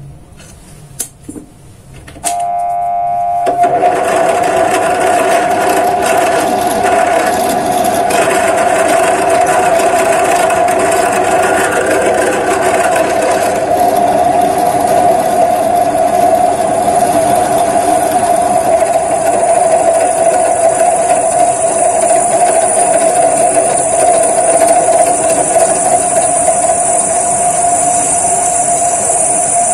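Bench drill press motor switched on about two seconds in, spinning up and then running steadily while a 5 mm bit drills a guide hole through square hollow steel tube; a high whine joins about halfway through as the bit cuts into the steel.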